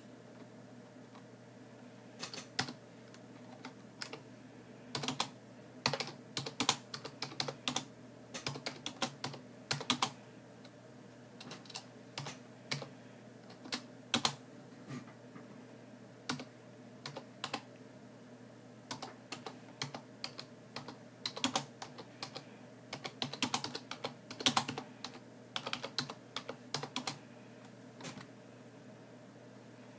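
Typing on a computer keyboard: irregular runs of key clicks with short gaps and a longer pause about halfway through, over a steady low hum.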